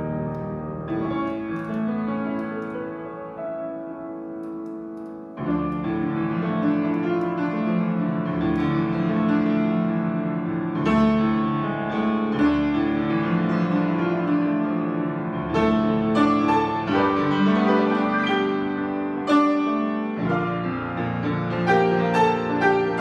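Freshly tuned 93-year-old grand piano being played: sustained chords over deep bass notes. About a second in the bass drops away to a lighter passage, and about five seconds in it comes back with fuller, louder chords.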